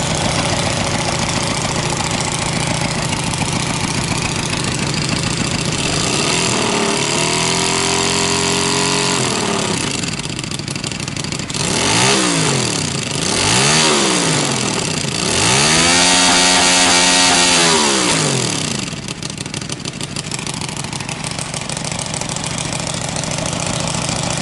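Kasinski Mirage 250i's fuel-injected V-twin engine idling, then revved four times: a held rev, two quick blips, and a longer held rev, each falling back to idle.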